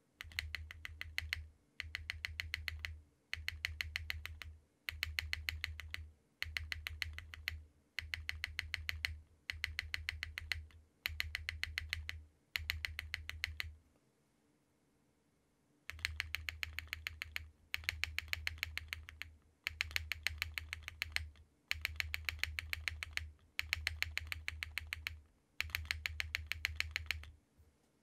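Mechanical keyboard spacebar pressed rapidly again and again in bursts of about a second and a half, with short breaks between. Soft 50A tadpole dampers sit under the spacebar, placed wide at first and then, after a longer pause about halfway, placed narrow.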